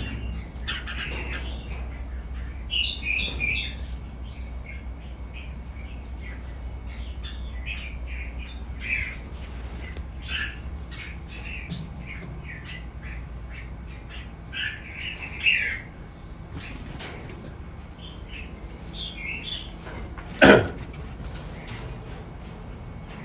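Red-whiskered bulbuls chirping and calling in short, scattered phrases, with one sharp knock about twenty seconds in, louder than the calls.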